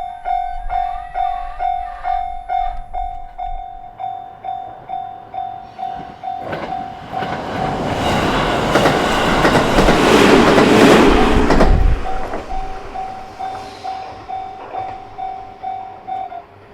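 Japanese level-crossing alarm dinging steadily while a train passes over the crossing. The train's rumble swells from about six seconds in and cuts off at about twelve seconds. The alarm keeps dinging until it stops shortly before the end.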